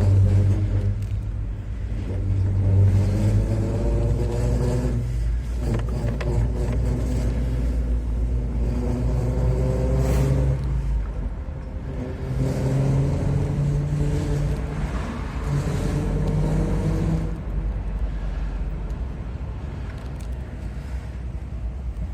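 Car engine running, its pitch climbing slowly three times for about five seconds each and then dropping, over a steady low rumble. This is a recording of a noise the owner takes to be abnormal.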